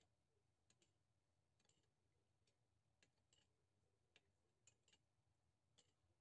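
Near silence with about a dozen faint, irregular light clicks: a metal spoon tapping against a ceramic bowl of liquid dipping sauce as it is stirred.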